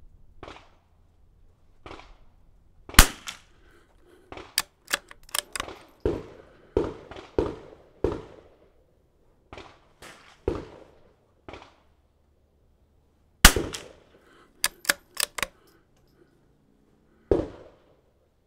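Single shots of .22 LR from a Browning A-Bolt bolt-action rifle: sharp cracks several seconds apart, the two loudest each followed a second or two later by a quick run of clicks as the bolt is worked. Quieter cracks with a short echo fall in between.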